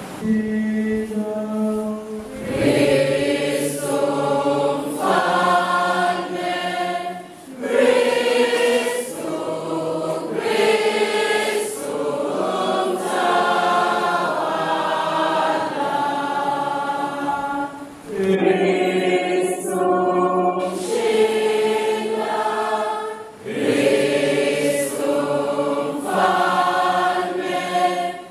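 Church choir singing a hymn in long phrases, with short breaks between lines.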